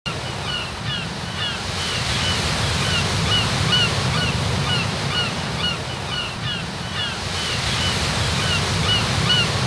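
Ocean surf with a steady wash of noise, and many birds calling over it in short chirps, a few each second.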